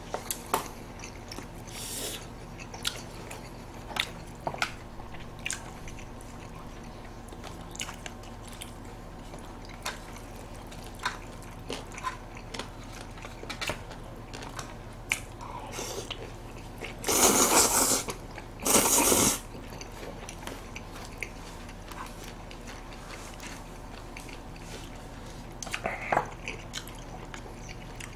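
Close-miked eating: chewing, biting and smacking of mouths, with scattered small clicks and taps. A little past halfway, two loud one-second slurps of chewy cold noodles (jjolmyeon).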